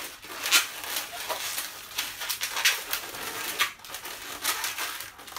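Inflated latex modelling balloons squeaking and rubbing under the hands as they are twisted and tied together, in an irregular run of short, sharp squeaks.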